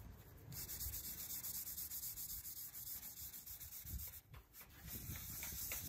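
Sandpaper rubbed by hand over a white-coated car body panel, a steady hiss that starts about half a second in and breaks off briefly near four seconds before carrying on.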